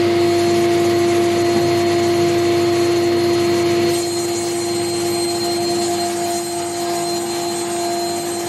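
Sliding table panel saw running with a steady tone over a rushing noise while a wide wooden panel is pushed through the blade, the sound dipping slightly about four seconds in.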